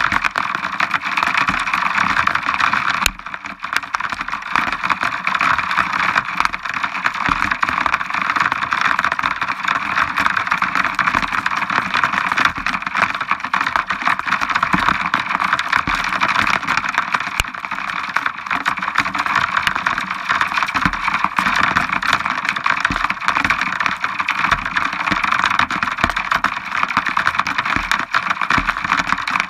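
Steady hiss of rain and wind from a supercell thunderstorm, with low buffeting thumps from wind on the microphone. A brief lull and a sharp click come about three seconds in.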